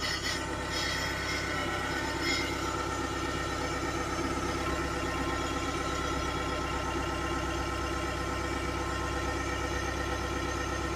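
Mahindra 2638 compact tractor's diesel engine running steadily with a coop lifted on its front forks, with a light click about two seconds in.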